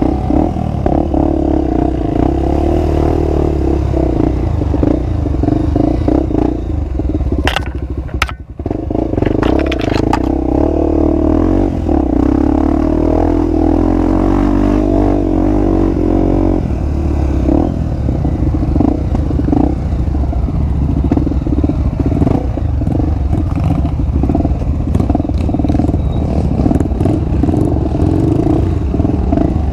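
Honda XR250 Tornado's single-cylinder four-stroke engine running under way on a dirt trail through a Power Core 2 aftermarket exhaust, with clattering and scraping throughout. The engine briefly drops off about eight seconds in, with a few sharp knocks.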